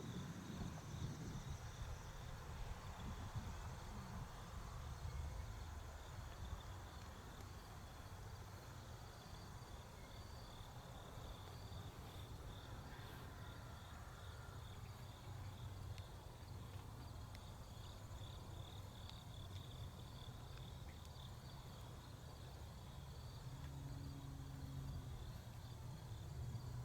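Federal Signal STH-10 mechanical siren coasting down after its test, its slowly spinning rotor giving a faint steady low hum, with insects chirring steadily in a high band over it.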